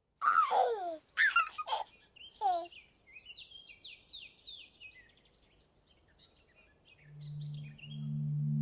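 Birds calling at dawn: a few loud calls that slide downward in pitch, then a run of quick high chirps that fade away. About seven seconds in, a low steady musical note swells in.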